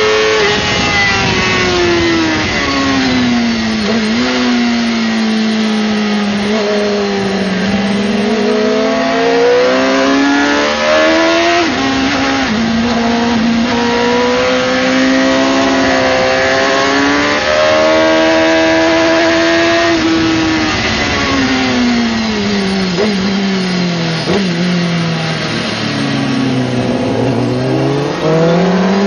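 Suzuki GSX-R600 inline-four engine at track speed with wind noise. The revs fall for several seconds as it slows for a corner, climb and hold along the straight, drop low again later, and rise once more near the end.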